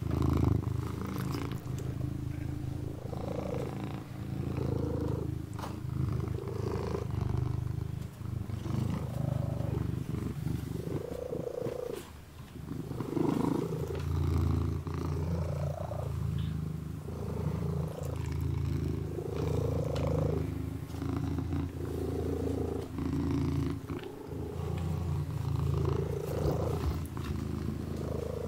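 Kitten purring steadily in close up, the purr swelling and easing every couple of seconds with its breathing, with faint soft licking as it grooms its paw.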